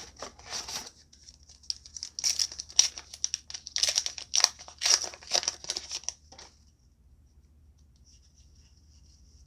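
A foil trading-card booster pack wrapper being torn open and crinkled: a quick run of sharp crackles and rips that stops after about six and a half seconds.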